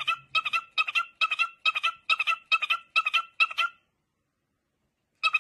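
Cockatiel calling over and over in a quick, even rhythm, about two calls a second. It stops about two-thirds of the way through and starts again right at the end.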